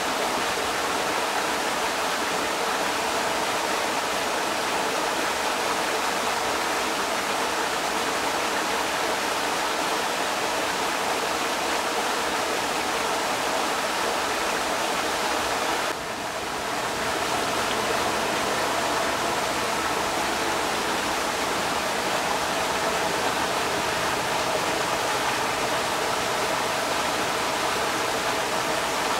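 Creek water rushing steadily over rocks, an even rushing noise with a brief dip in level about halfway through.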